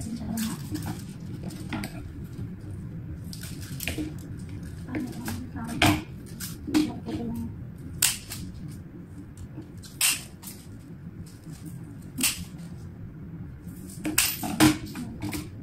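Scissors snipping flower stems: about ten sharp snips at irregular intervals, a second or two apart.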